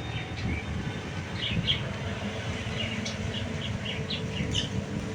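Small birds chirping, a quick run of short, high chirps, over a low steady rumble.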